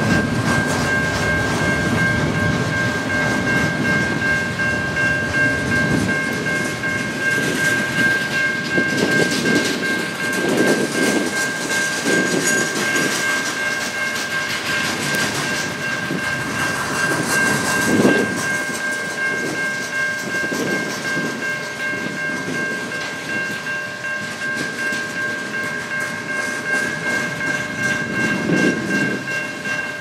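Freight train of covered hopper cars rolling past: wheels rumbling and clacking over rail joints, with a heavier clunk about 18 seconds in. A steady high-pitched ringing tone runs over the whole passage.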